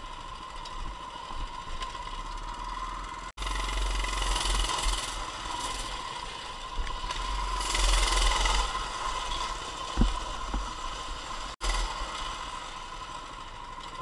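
Coleman CT200U mini bike's single-cylinder four-stroke engine running under way, with rattling from the bike, a noisier, louder stretch in the middle and a single knock about ten seconds in. The sound breaks off briefly twice. The owner says the engine is not running well and won't idle.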